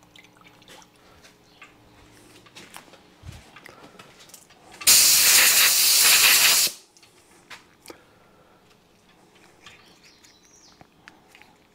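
Compressed-air blow gun blasting air over small plated parts on a wire hook to dry them: one steady hiss lasting about two seconds, starting about five seconds in. Light clicks of parts and wire being handled before and after.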